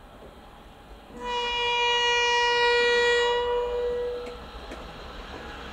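Irish Rail 201 Class diesel locomotive sounding its horn in one steady blast of about three seconds, starting about a second in. After it, the approaching train's running noise grows toward the end.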